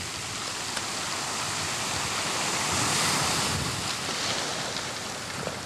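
Wind buffeting the microphone over choppy sea water, a steady rush that swells a little about halfway through.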